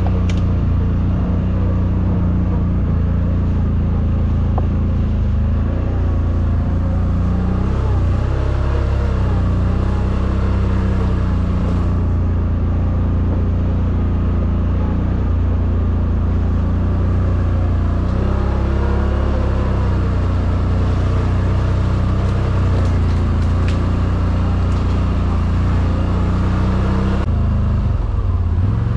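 CFMOTO G3 1000's engine running steadily while being ridden, a loud low rumble whose pitch rises and falls a few times as the engine speed changes.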